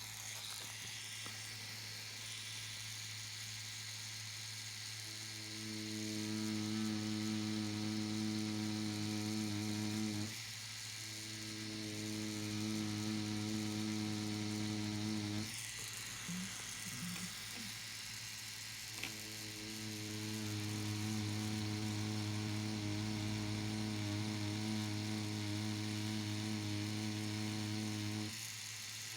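Tattoo machine with a 5RL needle buzzing while lining, in runs of several seconds, with short pauses about a third of the way in and around the middle, and stopping just before the end.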